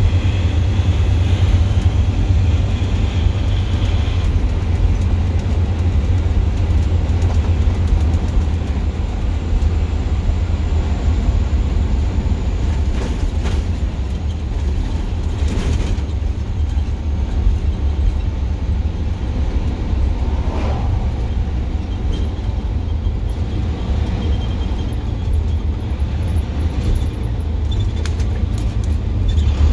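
Straight-piped International DT466E inline-six turbodiesel in a 2007 IC FE bus, running steadily under way with a loud, deep drone, heard from the driver's seat in the cab.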